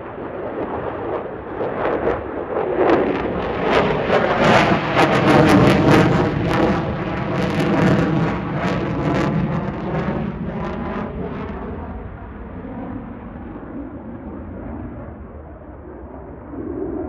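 F-16 Fighting Falcon jet engine noise swelling as the jet passes, loudest and crackling about four to nine seconds in, with a sweeping, phasing quality, then fading away.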